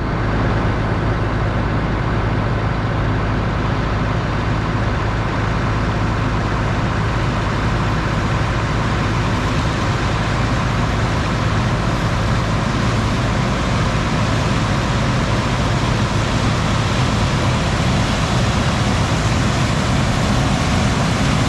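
Farm vehicle engine running steadily under way, an even drone with a low hum that holds constant throughout.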